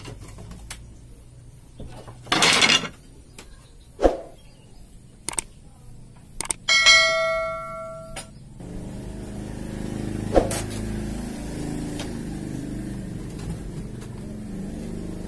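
A chime of several ringing tones, a 'subscribe' bell sound effect, about seven seconds in, set among scattered sharp knocks and a short whooshing sweep about two and a half seconds in. From about nine seconds on there is a steady low hum.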